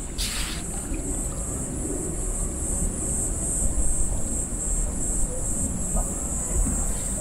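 Insects chirping in a steady, high, pulsing trill, with wind rumbling on the microphone and a brief rustle about a quarter-second in.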